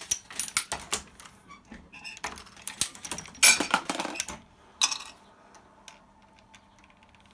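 Dillon 650 progressive reloading press being cycled to load .308 rounds: sharp metallic clicks and clatter of the press and brass cases, in bursts through about the first five seconds.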